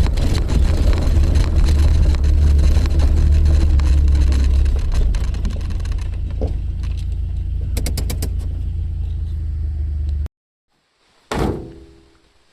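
Suzuki Jimny running, a steady low rumble with scattered clicks and a quick run of ticks, which cuts off suddenly about ten seconds in. About a second later comes a single thump.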